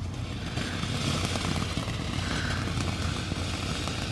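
Ground fountain firework spraying sparks: a steady hiss that sets in at the start, with small crackles through it.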